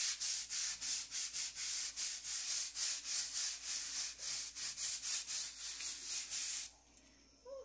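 A small hand scrubbing brush is worked rapidly back and forth over a rough plastered wall, about four strokes a second, scouring off algae and mildew. The scrubbing stops abruptly near the end.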